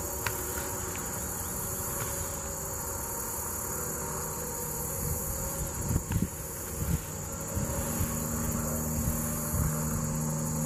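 Steady high-pitched chorus of insects in the summer vegetation, with a few low bumps about six to seven seconds in and a low hum joining from about eight seconds.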